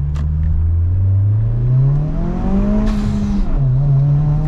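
Turbocharged 1.5-litre four-cylinder of a Honda Civic Si with an enlarged turbo inlet pipe, accelerating with its pitch rising steadily. A brief hiss comes about three seconds in, followed by a sudden drop in pitch at an upshift, and then the engine pulls up again.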